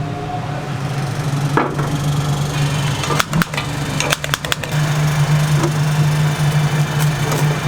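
A steady motor hum, with a few quick clusters of sharp clanks and knocks about three and four seconds in.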